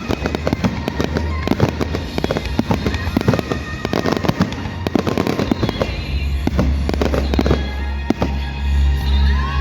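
Fireworks going off in rapid succession, a dense run of bangs and crackles, with music playing. After about six seconds the bangs thin out and the music's heavy bass comes to the fore.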